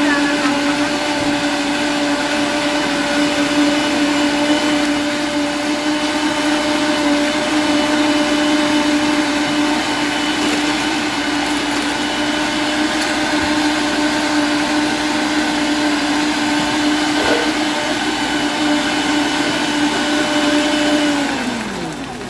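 Commercial countertop blender running steadily with a motor whine as it blends mixed fresh fruit into juice. Near the end the motor is switched off and winds down with falling pitch.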